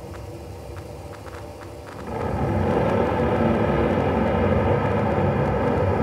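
Synthesized and sampled rainforest-storm soundscape played through theatre loudspeakers. A few faint clicks in the first two seconds, then about two seconds in the storm swells suddenly into a dense, thunder-like wash of low and middle noise that holds loud.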